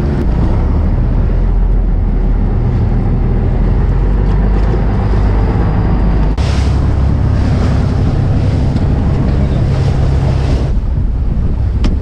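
Fishing boat's engine running with a steady low drone, under wind buffeting the microphone and the wash of choppy waves. The mix changes abruptly about halfway through.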